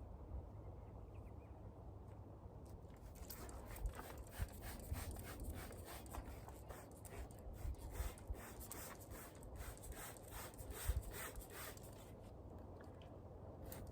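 A run of short, irregular rubbing and scraping strokes, about two or three a second, starting a few seconds in and stopping shortly before the end, over a faint steady low rumble.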